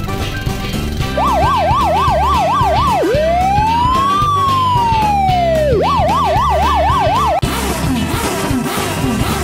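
Police car siren: a fast warble, then one slow rising-and-falling wail, then the fast warble again, cutting off suddenly, over background music.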